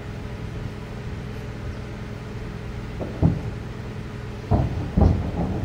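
Distant weapons fire from fighting heard over a steady low rumble: a heavy echoing boom about three seconds in, then two more close together near the end.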